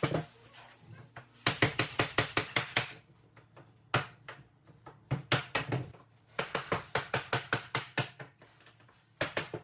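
Bursts of quick, sharp taps, about six a second, with short pauses between runs: a hammer knocking laminate planks together through a tapping block to close the click joints.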